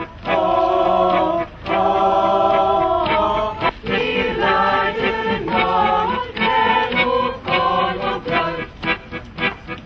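A group of mixed voices singing together in chorus. They hold long sustained notes for the first few seconds, then move into shorter, changing phrases.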